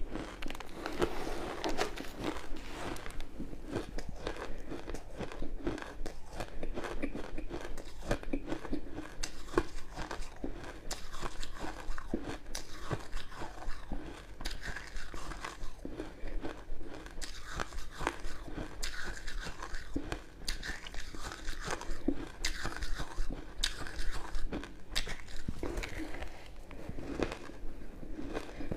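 Crushed ice dipped in matcha and milk powder being bitten and chewed: a dense, irregular run of crisp crunches and crackles.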